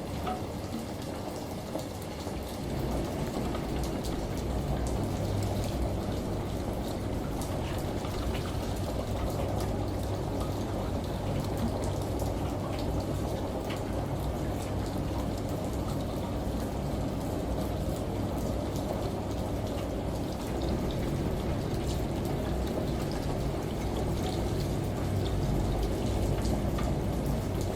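Steady rushing water and rain, with scattered faint drop ticks over a low steady hum that comes up two or three seconds in.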